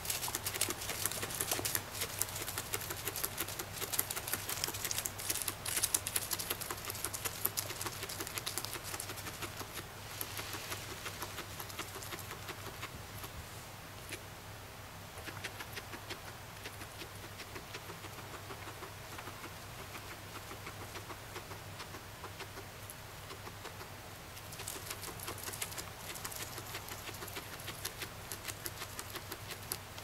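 Guinea pig chewing dry hay up close: a rapid, crisp crunching. The crunching is busiest in the first ten seconds and again near the end.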